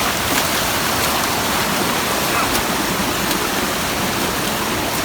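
Steady rush of flowing water from a hill stream or waterfall, an even hiss with a few faint clicks over it.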